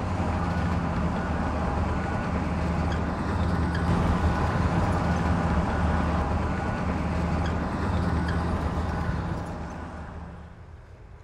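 Heavy construction machinery engine running steadily with a low hum, fading out near the end.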